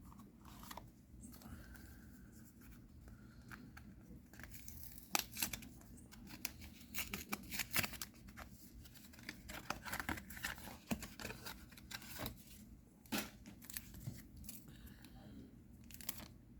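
A trading-card booster pack being opened by hand: the wrapper crinkles and tears, with a run of sharp crackles and clicks starting about four and a half seconds in.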